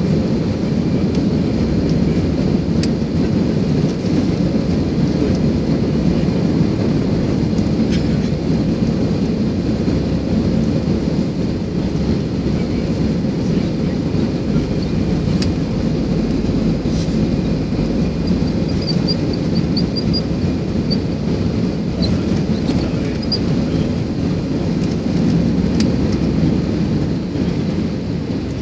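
Cabin noise of an Airbus A319 on its takeoff roll: CFM56 engines at takeoff thrust and the rumble of the runway, a loud steady low roar. The rumble eases slightly near the end as the aircraft lifts off.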